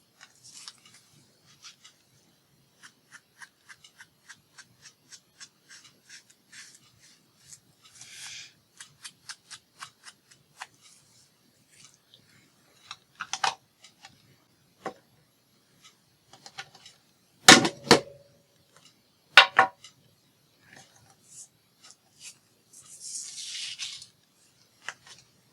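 Scissors snipping paper in a quick, even run of small cuts, about two to three snips a second. Then come three loud, sharp knocks, and a short rustle near the end.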